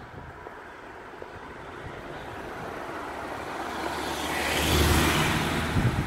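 A car passing close by, its engine and tyre noise building steadily to a peak about five seconds in, then beginning to fade.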